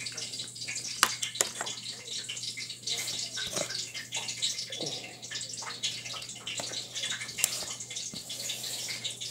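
Hot frying grease crackling and spitting steadily, with a few sharper pops, the sign that the oil is hot enough to take the fish.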